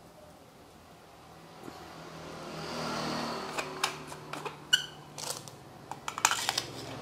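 Handling of a metal-bodied handheld wireless microphone. A scraping rub swells and fades around the middle as the metal mesh grille is screwed back onto the head, followed by a run of light clicks and short metallic clinks as the parts are handled.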